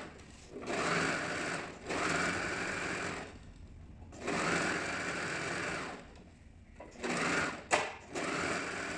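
Overlock serger stitching a fabric edge in short runs of one to two seconds, stopping and starting about five times, to finish the raw edge cleanly. A sharp click comes about three-quarters of the way through.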